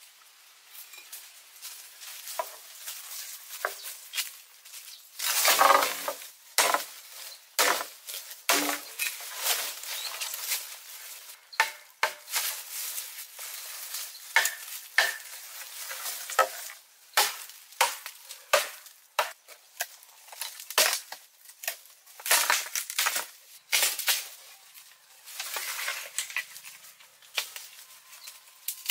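Rustling of leaves and branches being handled, broken by irregular sharp cracks and knocks from cutting and snapping wood, loudest about six seconds in.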